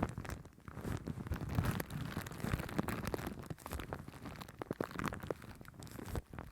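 Shaving cream foam squished and rubbed directly on a microphone: a dense, close-up crackling of many small clicks over a low rumble.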